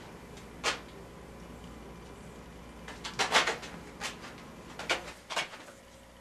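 A few short knocks and scuffs over a low room hum: one near the start, a quick cluster about three seconds in, then a few single ones.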